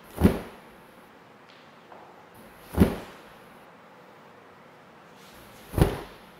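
Three sharp thumps about three seconds apart, each led in by a brief high swish, one on each count of a slow taekwondo basic movement.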